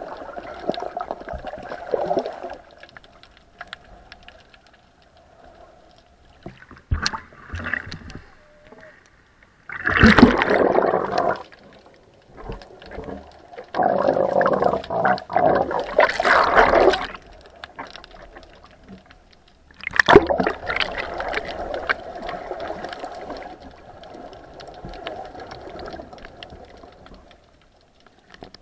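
Muffled water sloshing and gurgling heard underwater through a camera housing, with several loud surges.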